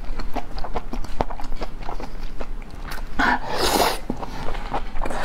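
Close-miked mouth sounds of someone eating raw lobster meat: many short wet smacks and chewing clicks. About three seconds in comes one brief, louder rushing noise.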